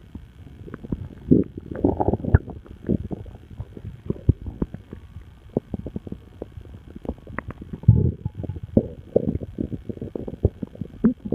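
Human stomach gurgling and rumbling: an irregular run of low gurgles and short bubbly pops, with louder gurgling spells about two seconds in and again about eight seconds in. These are bowel sounds from gas and fluid moving through the gut.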